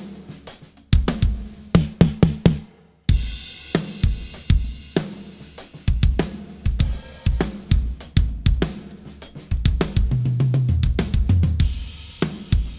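Acoustic drum kit playing a groove of kick, snare, hi-hat and cymbals, close-miked on every drum and mixed with EQ and compression. It stops briefly about three seconds in and comes back in, with a run of tom hits falling in pitch near the end.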